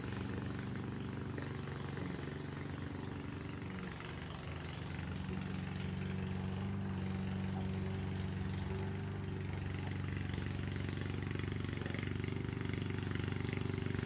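Engine of a Vigorun VTC55090 remote-control mower running steadily. Its note shifts and grows a little louder about four to five seconds in as it works the grass.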